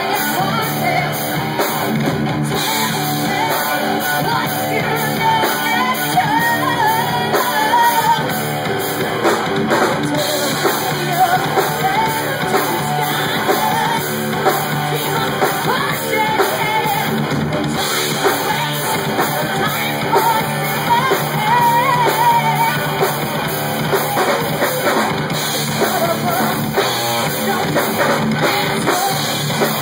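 Loud live rock band: electric guitars and a drum kit, with a woman singing into the microphone.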